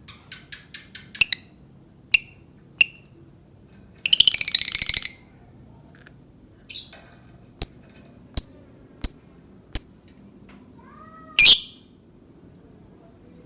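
Lovebird calling in short, sharp, spaced chips, with a fast rattling run of about a second a few seconds in and a longer, louder call near the end. These are the ticking 'ngetik' calls of a lovebird still learning them.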